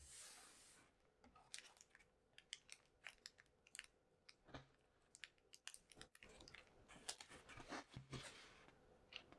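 Faint scattered small clicks and crinkles, with a short hiss at the very start.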